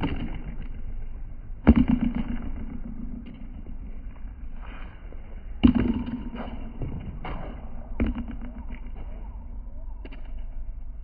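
Handball rally on a concrete wall court: a rubber ball smacked by open hands and slapping off the wall and ground. Four loud, sharp smacks, each with a short echo off the walls, come about two seconds apart with a longer gap in the middle, and fainter taps fall between them.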